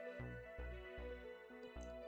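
Soft background music: gentle sustained tones over a slow, light low pulse.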